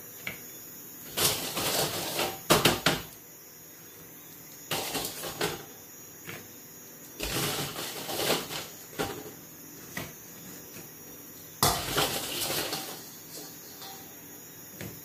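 Kitchen tongs clicking and fried breadfruit chips clattering as they are picked up and laid onto a wooden serving board, in about five short bursts of clicks and scrapes.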